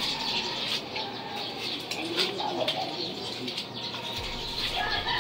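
Plastic bags crinkling and rustling as clothes are handled, with faint bird calls in the background.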